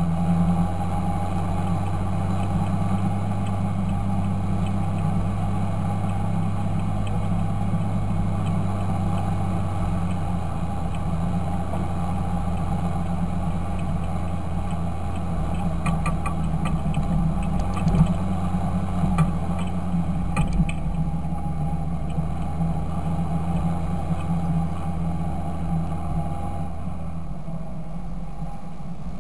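Fendt Favorite 926 tractor's diesel engine running steadily with a deep, even note and a few faint clicks partway through. Near the end it gets a little quieter and loses some of its lowest tone.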